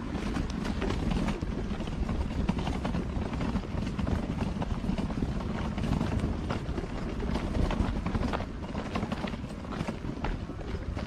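Footsteps crunching on a gravel trail at a walking pace, over a steady low rumble.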